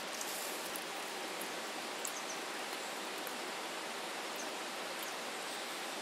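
Steady outdoor hiss, like flowing water or wind, with a few light clicks and taps as small metal camping cookware is handled.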